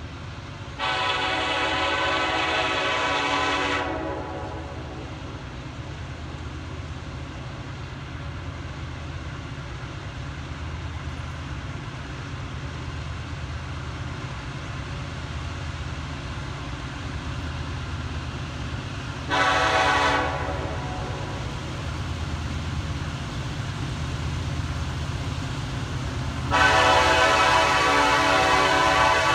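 Norfolk Southern 1067, an EMD SD70ACe diesel locomotive in Reading heritage paint, sounding its multi-chime air horn as it approaches a crossing: a long blast about a second in, a short one about two-thirds of the way through, and another long one near the end, over the steady low rumble of the approaching train.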